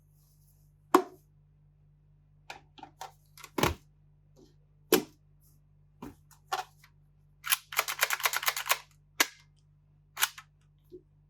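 Sharp plastic clicks and snaps from handling a toy Glock 18 pistol, with a rapid run of about a dozen clicks a little past the middle.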